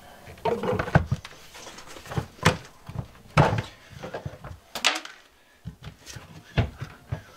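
Air Head composting toilet being shifted and set into place: a run of irregular knocks and clunks, about a dozen, of its plastic body and lid being moved.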